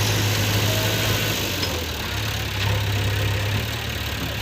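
Diesel engine of a backhoe loader or tractor idling steadily, with an even low hum.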